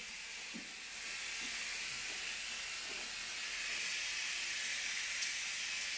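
Steady hiss of refrigerant gas escaping from a broken tube on an old air conditioner, a little louder from about a second in.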